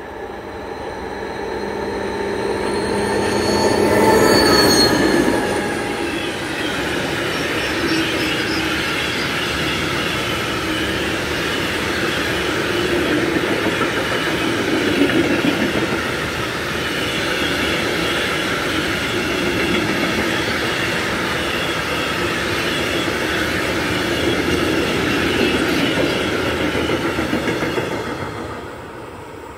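DB Class 232 'Ludmilla' diesel-electric locomotive passing at speed, its engine loudest about four seconds in. A long freight train of hopper wagons then rolls past with a steady rumble and a high squeal from the wheels. The sound drops away sharply near the end as the last wagon goes by.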